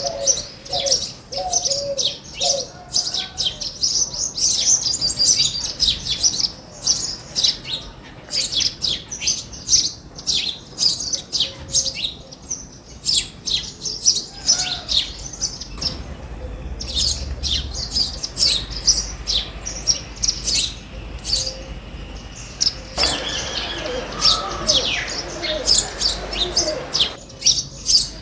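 Backyard birds chirping: many short, high calls overlapping continuously, as from several small birds together. A few low repeated notes sound in the first seconds.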